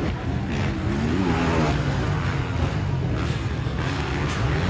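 Motocross bike engines racing on the track, revving up and down as the riders work the throttle.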